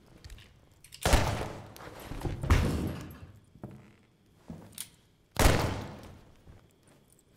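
Designed film handgun shots: a loud shot about a second in and another about five and a half seconds in, each ringing out in a long reverberant tail, with a further heavy hit around two and a half seconds in.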